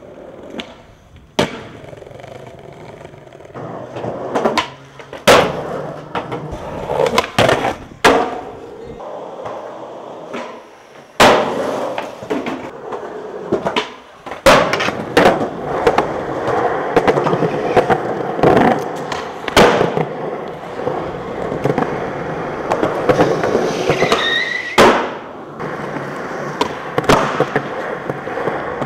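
Skateboard wheels rolling over concrete and pavement, broken again and again by the sharp cracks of tail pops and the slaps of the board landing, as one trick follows another. A short high squeal comes about three quarters of the way through.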